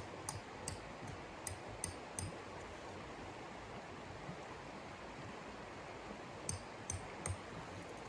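A steady hiss with two runs of short crisp knocks or crunches, each with a dull thud under it and about 0.4 s apart. The first run has about five in the first two seconds, and three more come near the end.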